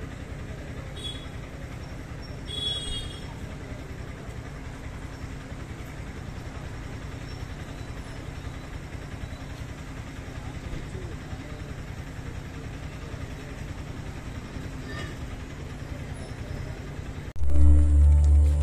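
Steady low outdoor rumble with two brief high chirps early on. About 17 seconds in it cuts abruptly to loud music with heavy bass, the soundtrack of the laser projection show.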